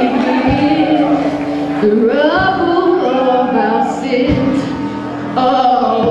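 Live rock band playing: a female voice sings over electric guitar, bass guitar and drums, with drum hits marking the beat.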